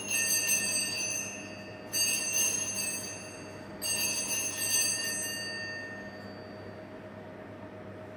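Altar bell rung three times, about two seconds apart, each strike ringing on and fading, at the elevation of the chalice after the consecration at Mass.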